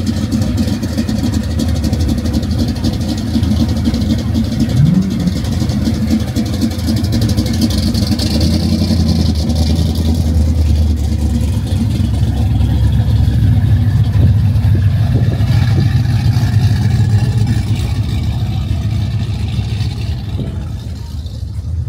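A car engine running with a steady low rumble that grows louder through the middle and eases off near the end.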